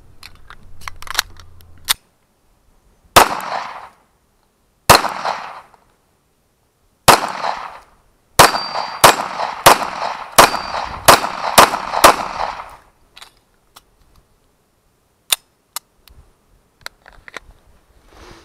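An IWI Jericho 941 9mm pistol is reloaded with a few metal clicks, then fires about a dozen shots: three single shots about two seconds apart, then a quick string of about nine. It is shooting steel-cased ammunition that cycles without malfunctions. Small scattered clicks follow after the last shot.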